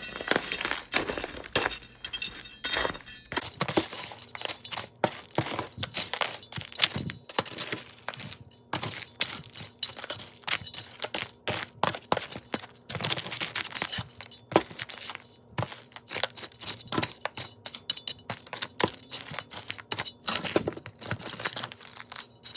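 Crushed pumice being stirred into cactus potting soil: a continuous, irregular run of gritty scrapes and light clinks as the stone chunks knock together.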